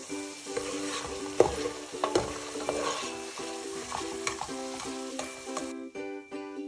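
Food sizzling in hot oil in a pan while being stirred, with a few sharp knocks of a utensil against the pan between one and three seconds in. The sizzle stops about a second before the end.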